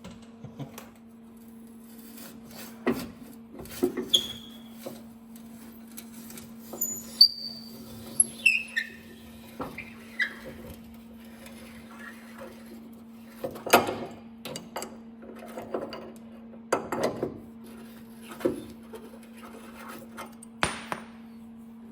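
Steel tools and metal parts clinking and knocking against each other as a welded-on bolt is worked on, with a few short ringing pings about a third of the way through, over a steady low hum.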